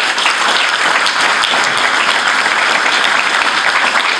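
Audience applauding steadily after a speech, a dense mass of hand claps.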